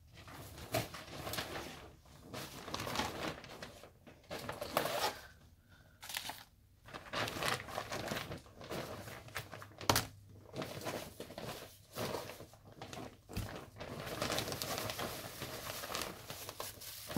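A shopping bag rustling as skeins of yarn are handled and packed into it, with a couple of sharp knocks about ten and thirteen seconds in.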